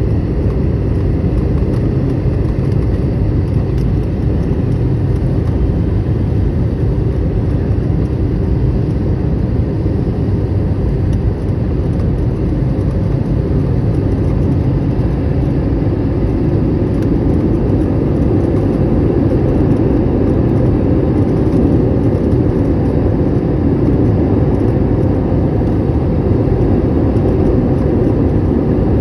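Steady low-pitched cabin noise inside an airliner on its approach to land: engine and airflow noise heard through the cabin, rising slightly in the second half.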